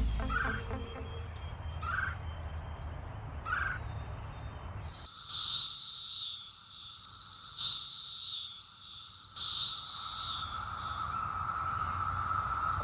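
Brood X periodical cicadas calling: a steady droning chorus sets in about five seconds in. Three loud buzzes, each about two seconds long, come from cicadas close by. A few short calls are heard before the chorus starts.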